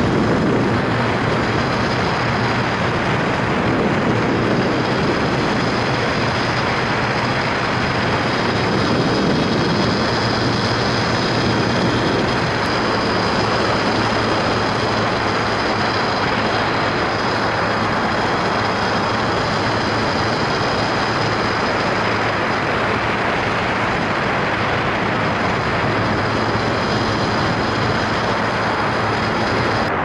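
Foot-launched powered hang glider's engine running steadily in flight, with a heavy rush of wind over the microphone.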